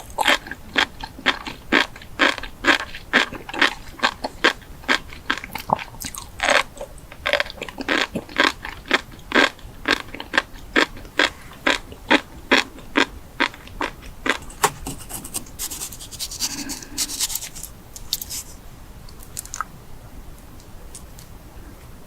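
A person chewing crunchy food, with sharp crunches coming about two a second. Past the middle the chewing gives way to a brief dense crackling, then it goes much quieter.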